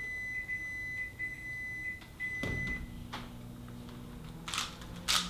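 A steady high electronic beep held for about three seconds, then a click, then a quick run of plastic clicks near the end as a loose GAN speed cube is turned fast.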